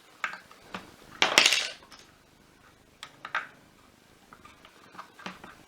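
Hard clicks and clinks of tools and small parts being handled during the strip-down of a vacuum power nozzle, with one longer, louder rattling scrape a little after a second in.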